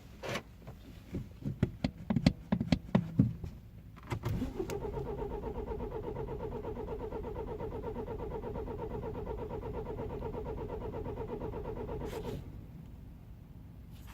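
A 2009 BMW 320i's four-cylinder petrol engine being cold-started at −12 °C: a few clicks and knocks, then the starter cranks with a steady pulsing whine for about eight seconds and stops. This is a hard start, which the owner traced to a broken camshaft timing chain tensioner.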